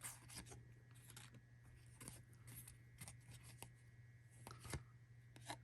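Trading cards from a 2022 Topps Series 1 pack being flipped through by hand one at a time: faint, irregular flicks and slides of card stock, one or two a second, over a faint low hum.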